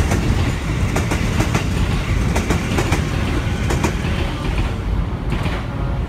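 103 series electric train running, a steady rumble with irregular sharp clacks of the wheels over rail joints.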